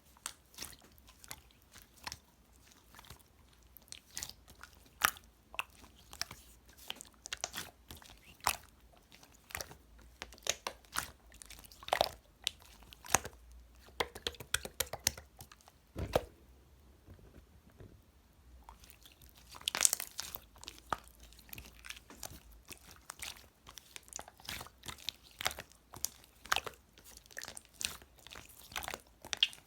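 Slime being squeezed and worked by hand, giving many irregular sticky pops and crackling clicks, with a louder burst of crackles about two-thirds of the way through.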